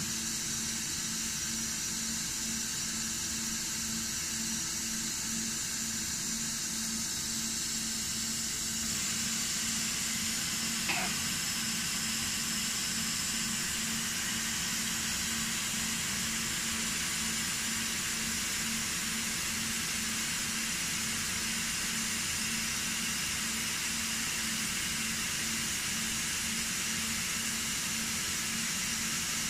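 Disco DAD3350 dicing saw making a test cut: its spindle and coolant water spray hiss steadily over a steady low hum, growing slightly louder about nine seconds in.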